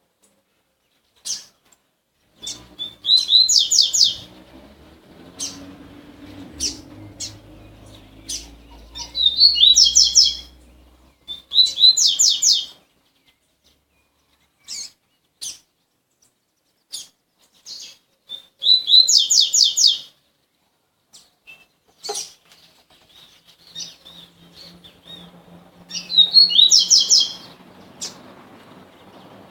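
Male double-collared seedeaters (coleiros) singing: about five short, loud phrases of fast, sharp repeated notes, with single chip notes in between.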